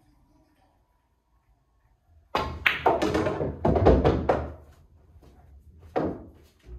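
A pool shot on a Diamond pool table. A sharp cue-tip strike and the clack of the cue ball on the object ball come about two and a half seconds in, followed by a quick run of knocks and a deep thud as the ball drops into the near corner pocket. A single sharp knock follows near the end.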